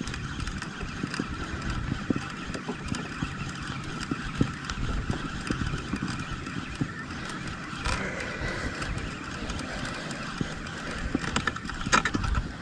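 Penn Battle II 5000 spinning reel being cranked steadily while fighting a fish, a continuous whirring of the reel, with a low rumble and small handling clicks.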